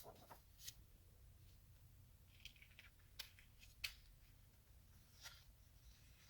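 Faint crisp rustles and flicks of paper sheets being handled and turned over, about five separate times.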